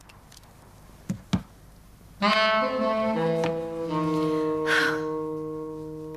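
Two soft clicks, then slow background music begins about two seconds in, playing long held notes that change pitch in steps.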